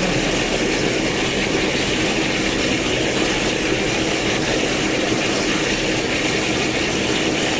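DAB E.sybox 3 hp booster pump running steadily on a test run: a constant mechanical running noise with a steady hum.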